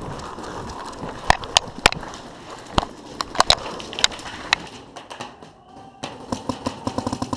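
Paintball markers firing: scattered single shots through the first half, then a fast string of about ten shots a second in the last second and a half. Under them runs the scuffing rustle of a player running and dropping to the ground behind a bunker.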